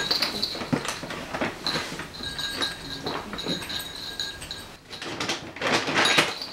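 Siamese cat eating dry kibble from a ceramic bowl: a run of small crunches and clicks, with kibble clinking against the bowl. About five seconds in, a plastic pet-food bag rustles for just over a second.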